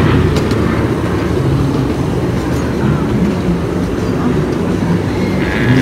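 Ride-on miniature train rolling along its track: a steady low rumble, with a few clicks near the start.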